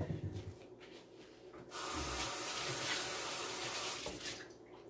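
A few light knocks, then a kitchen sink faucet running in a steady stream, turned on a little under two seconds in and shut off about two and a half seconds later.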